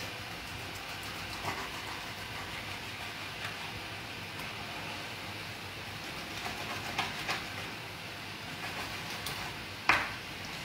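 Kitchen knife cutting through a raw salmon fillet onto a plastic cutting board, with a few light taps of the blade on the board over a steady background noise. A sharper knock comes near the end.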